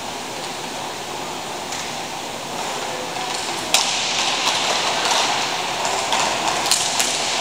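Inline roller hockey play: the hiss of skate wheels rolling on the rink floor with hockey sticks clacking. A sharp clack comes a little before four seconds in, after which the wheel noise grows louder and more stick taps follow.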